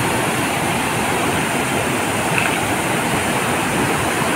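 A wide multi-tiered cascading waterfall: whitewater rushing steadily over the rock ledges, a loud, even, unbroken rush.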